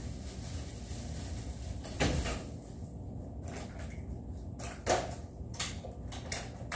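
A few scattered knocks and clacks of things being handled, the loudest about two seconds in and another about five seconds in, over a low steady background hum.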